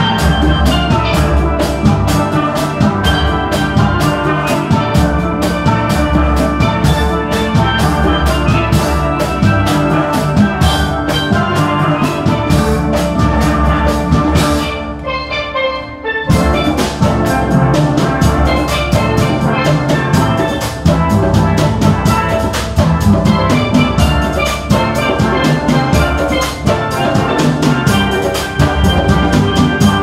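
Steel band playing: many steel pans struck with sticks, over a steady percussion beat. About halfway through, the band thins to a few ringing pan notes for a second or two, then comes back in full.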